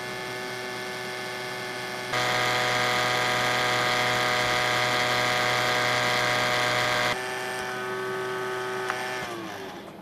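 Toshiba laptop's sealed cooling fan running with a steady, loud buzzing rattle, the noise of a fan whose bearing wants lubricating. It is loudest through the middle, then its pitch sinks near the end as it winds down.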